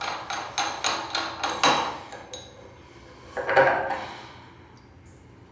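Chrome parts of a wall-mounted push-type flush valve handled and unscrewed by hand: a run of short metal scrapes and clicks about three a second, then one louder metallic clink about three and a half seconds in.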